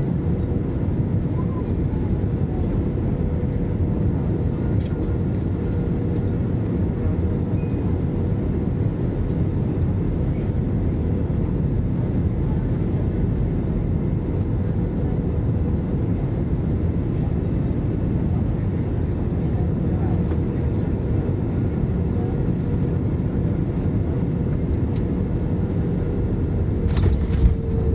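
Airliner cabin noise on final approach: a steady rumble of jet engines and airflow with a steady hum over it, then a brief thump near the end as the wheels touch down on the runway.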